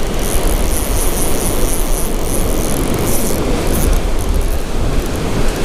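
Wind rumbling on the microphone over the wash of breaking surf, with a faint high whir from about the first three seconds as the spinning reel is cranked.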